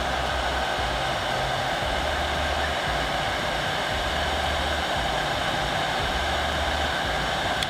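Electric heat gun running steadily: a constant rush of blown air at one even level.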